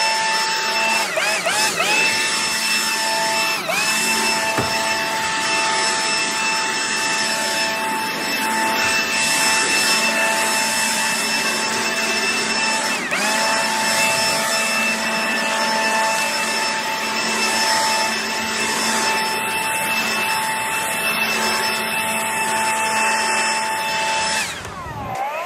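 SnapFresh cordless battery-powered leaf blower running at a steady high whine as it blows clippings off a concrete sidewalk. Its motor pitch dips briefly and recovers a few times. Near the end it falls sharply and then spins back up.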